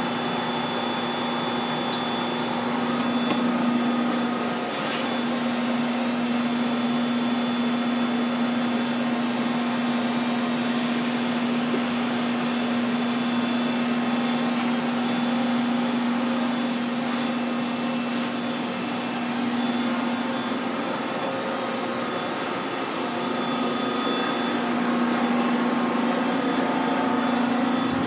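Powered-up industrial machinery running with a steady whir and a constant low hum.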